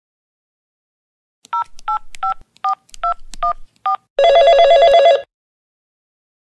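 Phone keypad dialling: seven short two-tone touch-tone (DTMF) beeps in quick succession, followed about four seconds in by a single burst of trilling telephone ring lasting about a second.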